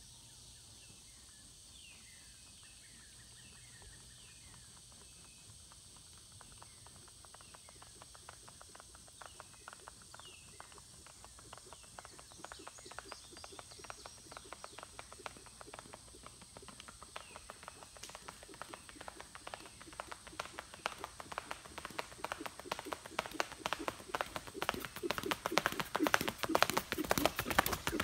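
Hoofbeats of a Tennessee walker–saddlebred cross horse on the road, a quick, even patter that grows steadily louder as the horse approaches and is loudest as it passes close near the end. Birds chirp faintly in the first half.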